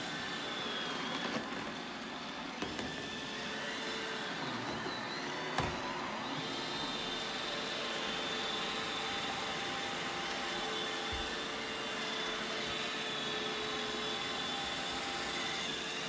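Robot vacuum cleaner running on a hardwood floor: the steady whir of its suction motor and brushes, with a faint high whine over it. A single light knock about five and a half seconds in.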